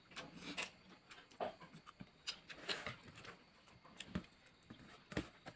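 Faint eating sounds from rice eaten by hand off a steel plate: irregular small clicks, smacks and scrapes of fingers and mouth.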